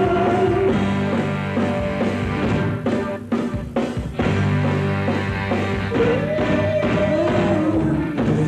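Live rock band playing, with bass, guitars and drums, and a woman singing lead. The band thins out briefly about three seconds in, and the singing line comes back strongly near the end.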